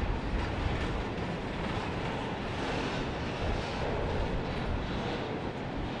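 Double-stack container well cars of a CP Rail freight train rolling past: a steady rumble of steel wheels on rail.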